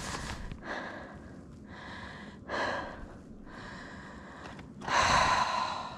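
A hiker breathing hard, about five breaths, the loudest near the end.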